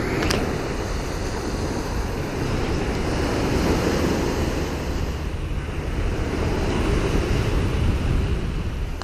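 Small waves breaking and washing up on a sandy shore, a steady rush, with wind buffeting the microphone.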